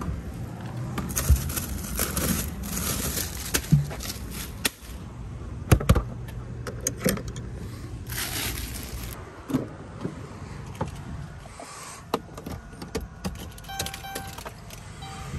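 Handling noises around a bagged-ice freezer and a minivan: the freezer door opening and shutting, a plastic bag of ice crinkling as it is lifted out and set down on the pavement, scattered knocks and clicks, then a car door and the driver settling in. Faint beeping tones come in near the end.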